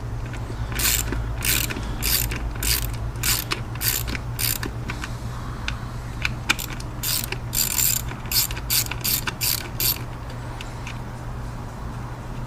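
Socket ratchet clicking in strokes as a 10 mm bolt holding an ignition coil pack is worked loose, about one stroke every half second, then a quicker run of clicks that stops about ten seconds in. A steady low hum runs underneath.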